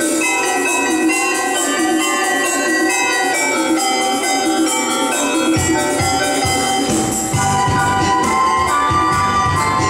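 Yamaha Electone Stagea electronic organ played live, a full multi-voice arrangement of many held and moving notes; a bass line comes in a little past halfway.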